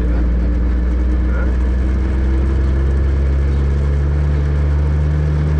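1968 milk truck's engine running at low speed, heard from inside the cab as the truck is driven slowly. The engine note steps up a little about two seconds in.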